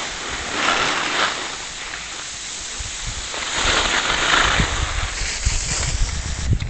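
Hiss of sliding on packed snow down a ski run, swelling twice with the turns, and wind buffeting the microphone from about two-thirds of the way in.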